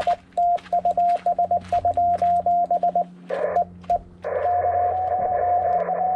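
Morse code sent on a ham transceiver's CW sidetone: a single pitched tone keyed in short and long elements for about four seconds. Then receiver audio returns with hiss and a steady tone from the band, where a pileup of stations is calling.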